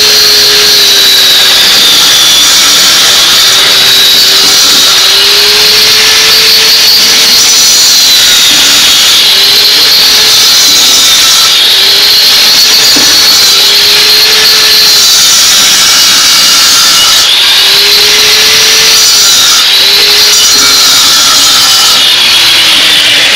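Angle grinder cutting into concrete blockwork to cut out damaged bottom blocks, running loud and without a break. Its high whine dips and recovers again and again as the disc bites into the block and eases off.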